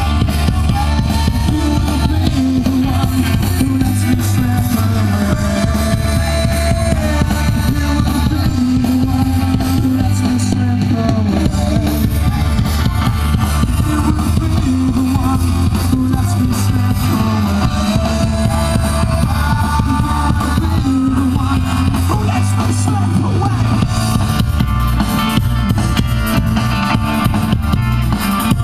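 Rock band playing an instrumental passage: electric guitars over a drum kit, at a steady loud level.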